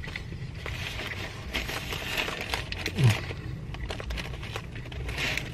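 A man chewing a big mouthful of a meat-filled tortilla wrap: small wet mouth clicks and soft breathing, with a short falling 'mm' hum about three seconds in.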